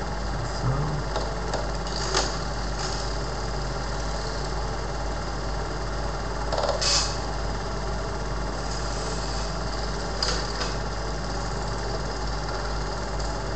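Bauer T-192 Automatic DuoPlay Super 8 projector running, its motor and reel drive giving a steady mechanical hum, with a few short knocks along the way.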